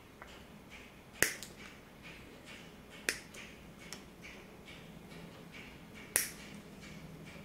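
Diagonal cutting pliers snipping the ends of a mouse cable's thin soldered wires: three sharp snips, a couple of seconds apart, with faint ticks of the jaws being repositioned in between.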